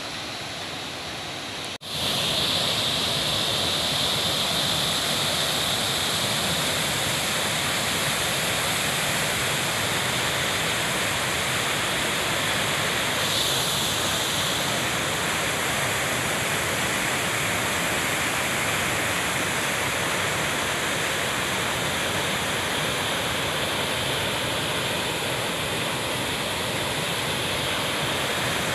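Small waterfall with a low flow of water, rushing steadily; after a brief break about two seconds in it comes back louder and stays steady.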